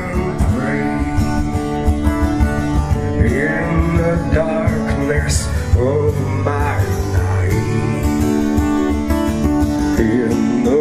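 Live music: a man singing with an acoustic guitar, amplified through stage speakers.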